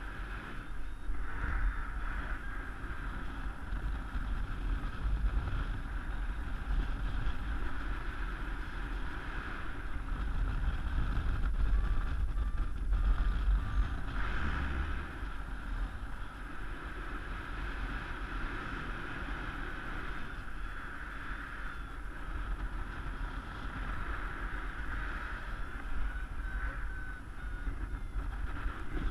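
Airflow rushing and buffeting over the microphone of a paraglider pilot's camera in flight, a steady rumble that swells and eases with gusts. A few faint series of short beeps sound now and then.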